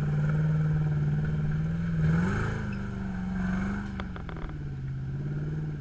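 Off-road 4x4's engine running at low revs as it crawls through mud, the revs rising briefly about two seconds in and then easing off. A few sharp clicks about four seconds in.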